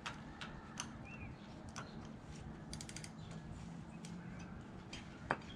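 Faint, scattered metallic clicks and ticks from hand tools working on engine bolts, with a quick run of clicks about three seconds in and a sharper single click near the end.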